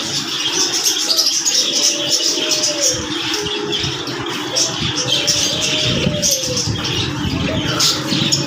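Many caged small birds chirping and twittering over one another. A low, drawn-out arching call recurs every couple of seconds over the chirping.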